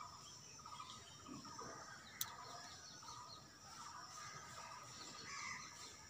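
Faint outdoor ambience: scattered distant bird chirps over a steady high insect hum, with one sharp click about two seconds in.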